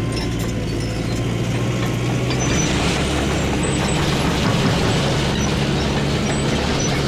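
Caterpillar D5K crawler dozer's diesel engine working steadily as it cuts and pushes dirt. It grows louder and rougher about two and a half seconds in as the load comes on.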